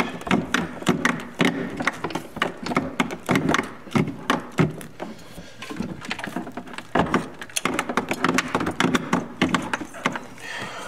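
Irregular clicks, knocks and rubbing as a corrugated plastic vacuum hose is worked through a grommet in a cleaning machine's frame and the parts are handled.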